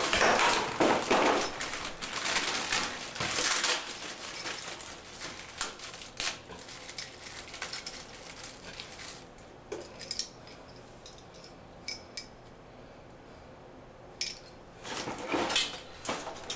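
Small metal parts clinking and rattling as they are handled: a shower valve repair plate with its screw and bracket. The clatter is busiest for the first few seconds, thins to scattered clicks, and picks up again near the end.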